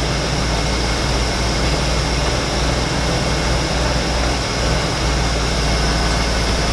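BMW E36's M52 straight-six engine idling steadily, running smoothly with its VANOS unit freshly rebuilt; an exhaust leak is still to be fixed.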